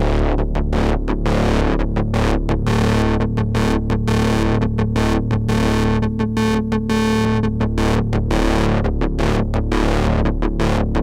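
Eurorack modular synthesizer patch run through an Erica Synths Black Ring-XFade ring modulator, playing a rhythmic run of short gated notes over a steady low drone. For a few seconds in the middle the sound fills in with a denser, brighter metallic buzz of ring-modulated overtones.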